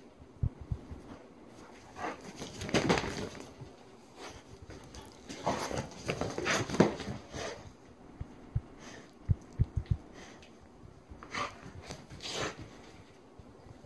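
A dog playing with a toy on a rug: scattered scuffles and rustles, with short dull thumps, several in quick succession about nine to ten seconds in.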